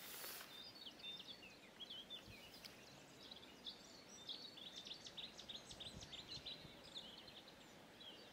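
Faint birdsong: many quick, high chirps and short warbling phrases over a quiet background hiss.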